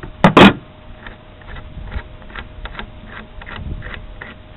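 Two sharp metal knocks about half a second in, then scattered light clicks and taps as an adjustable wrench and carburetor parts are handled on a car's hood.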